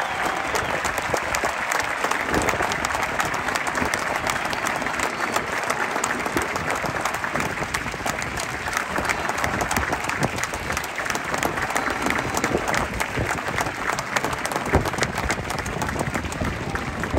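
A large stadium crowd applauding steadily, a dense patter of many hands clapping at once.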